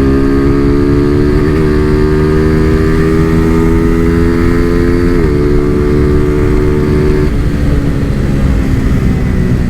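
Single-cylinder four-stroke engine of a Honda Fan 125 motorcycle with a big-bore kit, pulling under throttle while being ridden. Its pitch climbs slowly, drops sharply at a gear change about five seconds in, and falls to a lower, steady note as the throttle eases off about seven seconds in.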